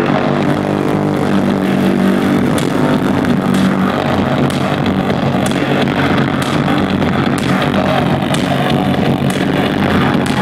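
Live electronic music played loud through a venue sound system: a dense, sustained low drone with sharp clicks about once a second.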